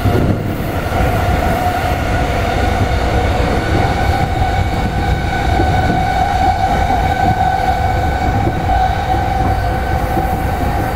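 JR East E217-series electric commuter train heard from inside the carriage while running: a steady whine holds level over a continuous rumble of wheels on track.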